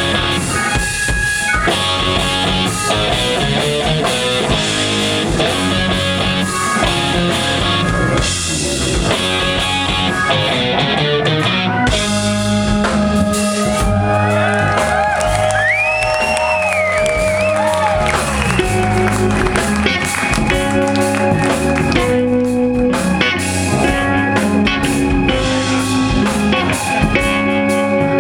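Live blues-rock band playing an instrumental passage: electric guitar over bass and drum kit, with bending, sliding guitar notes through the middle.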